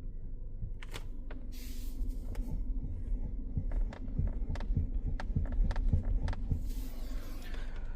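Irregular knocking from the steering of a Jetour Dashing, a dozen or so sharp knocks starting about a second in, over a low steady hum. It is a steering knock that the owner links to the intermediate steering shaft and steering rack, the same fault he had on a Chery Tiggo 8 Pro Max.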